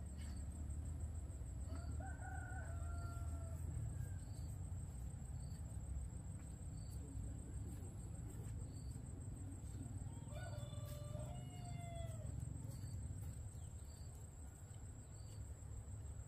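A rooster crowing twice, about two seconds in and again about ten seconds in, each crow lasting a second or two, over a steady low rumble.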